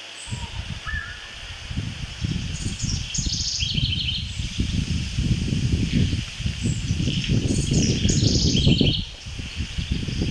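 Wind rumbling on the microphone in irregular low gusts, with small songbirds giving short, high chirping trills twice, a few seconds in and again near the end.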